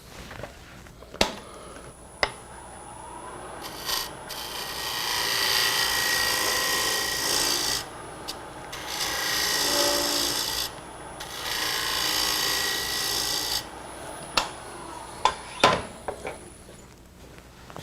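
Wood lathe spinning a maple box lid, with a thin steady high whine and three long stretches of scraping hiss as wood is worked against the turning piece while the fit of the lid's recess is checked. Sharp clicks sound near the start and several more near the end.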